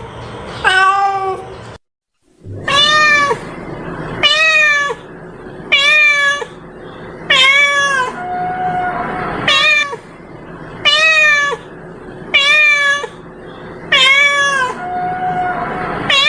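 Domestic cat meowing over and over, about one meow a second, most meows dropping in pitch at the end and a couple held level. The audio cuts out briefly about two seconds in. It is a looped cat call used to lure cats.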